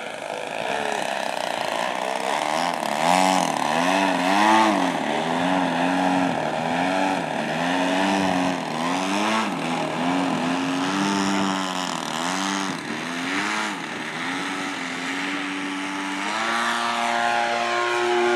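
DLE-35RA single-cylinder two-stroke gas engine and propeller of a 75-inch Extra 330 LT model aerobatic plane, its pitch swinging up and down again and again as the throttle is worked while the plane hangs nose-up on its propeller. Near the end it holds a steady, higher pitch.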